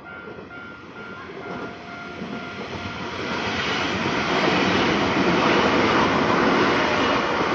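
Nankai Kōya Line train passing over a level crossing. Its running noise builds from about two seconds in and stays loud. At the start the crossing warning bell rings in short repeated tones, then the train drowns it out.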